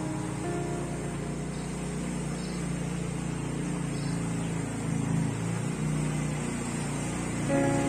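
Motor scooter engine running as the scooter rides slowly through flood water, a low steady hum that shifts in pitch about two-thirds of the way through.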